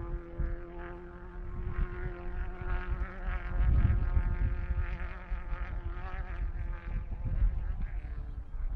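A distant engine held at steady high revs, giving a buzzing drone of nearly constant pitch that fades out near the end, over a low rumble.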